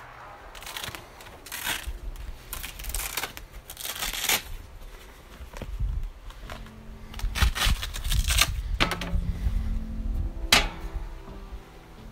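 Handling noise from a fabric bow decoy being fitted on a compound bow: a string of short rustling and scraping bursts with a few sharper clicks, over a low wind rumble on the microphone.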